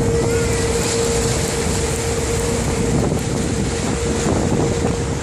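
Tour boat's engine running steadily under way, a constant hum over a low rumble, with wind buffeting the microphone.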